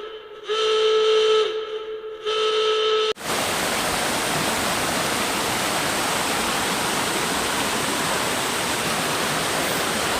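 A whistle-like tone sounds twice, each about a second long. About three seconds in it cuts suddenly to the steady rush of a valley stream's flowing water.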